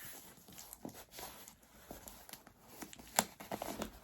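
Packaging being handled as a box is opened: faint rustling and small clicks, with one sharp click about three seconds in.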